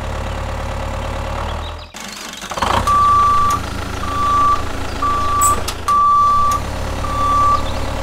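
Model tractor's engine sound running low and steady, cutting out about two seconds in, then a high electronic beep repeating about once a second over the engine, like a reversing alarm.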